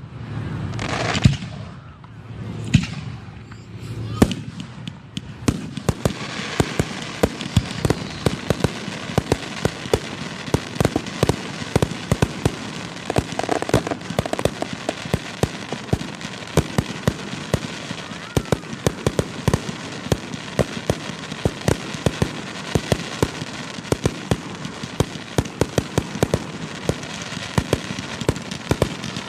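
Fireworks at close range: a few separate shell bursts in the first seconds, then from about six seconds in a dense, continuous crackle of many sharp pops.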